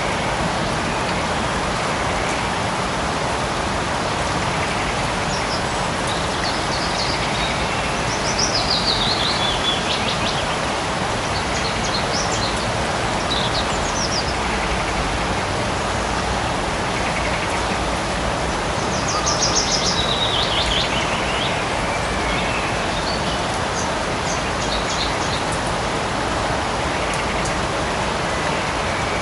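Steady light rain falling in a forest, with birds singing over it: two falling trilled phrases, about a third and two thirds of the way in, and scattered high chirps between.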